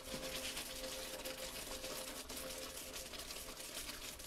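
Thick étouffée sauce simmering as it reduces in a pan, with faint bubbling and small pops, over a faint steady hum.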